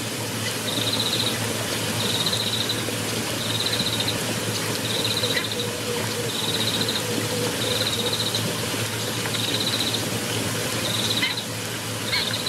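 Outdoor waterhole ambience: a short, high, pulsed trill call repeats about once a second over a steady hiss and a low hum.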